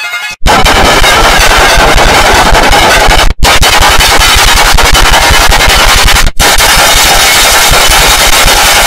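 Extremely loud, heavily overdriven and clipped electronic audio effect: a harsh crackling noise with rapid clicking in the low end. It drops out briefly about a third of a second in, at about three and a third seconds, and at about six and a third seconds.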